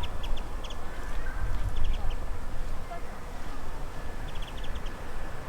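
Japanese white-eyes calling: short, high chirps in quick little clusters, about three times, over a steady low background rumble.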